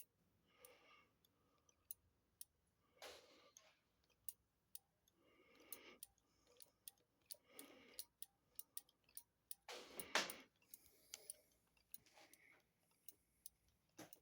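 Faint, uneven light clicks with a few soft swishes from hands working on a motorcycle's brake master cylinder. The loudest swish comes about ten seconds in.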